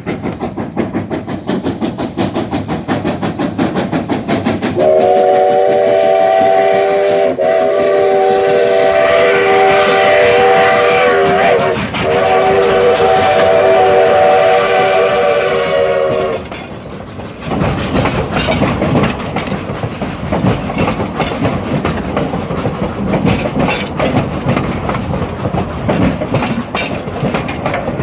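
Narrow-gauge train cars rolling past close by, wheels clicking rapidly over the rail joints. About five seconds in the train's whistle sounds a steady chord of several notes for about eleven seconds, with a brief break partway through. After the whistle stops, the wheel clatter is louder.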